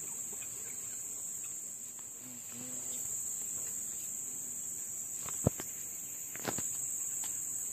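Steady high-pitched drone of insects, with two sharp clicks about a second apart past the middle.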